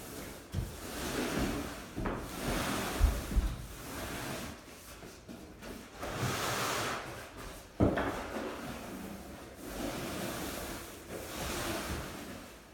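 Long-handled roller spreading water-based coating over timber floorboards: repeated swishing strokes, each a second or two long, with a few sharp knocks in between.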